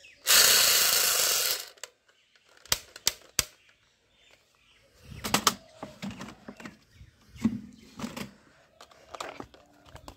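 A loud hiss of about a second and a half near the start, then plastic toy guns clicking and clattering as they are handled and knocked together in a plastic bucket, with several bursts of rattling thuds.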